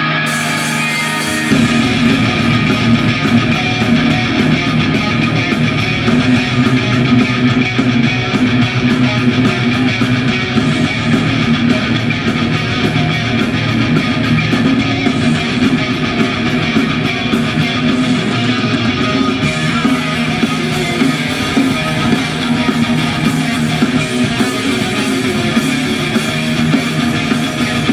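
Heavy metal band playing live: distorted electric guitars, bass and drums at full volume, the full band kicking in about a second and a half in.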